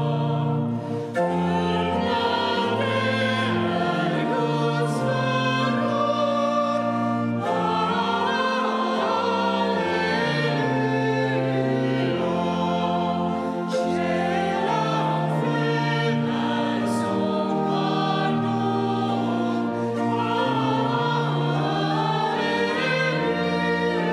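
Pipe organ playing slow sustained chords that change every second or two, with singing voices over it.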